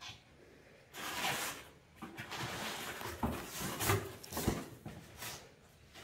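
A cardboard shipping box being opened by hand: rasping scrapes of packing tape and cardboard in uneven bursts, with a few dull knocks near the middle.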